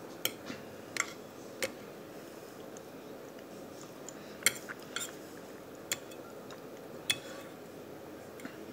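Metal fork clinking against a dinner plate, about seven sharp separate clicks spaced irregularly, under a second to a second apart, over a faint steady hiss.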